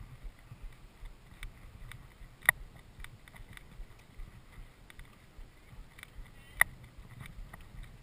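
A horse walking under saddle: faint ticks and creaks of its tack over a low rumble on the helmet-camera microphone, with two sharp clicks, one about two and a half seconds in and one about six and a half seconds in.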